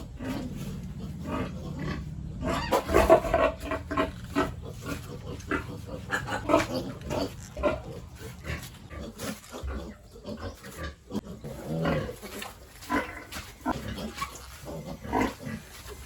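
Pigs making many short, irregular grunts and calls, loudest about three seconds in.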